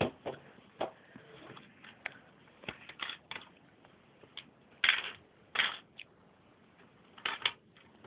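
Plastic Lego bricks clicking and clattering in irregular short bursts as pieces are picked up, handled and pressed together.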